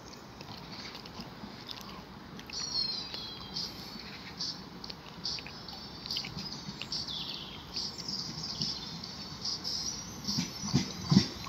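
Small birds chirping, many short high calls one after another. Near the end an approaching electric train's low rumble builds, with a few knocks.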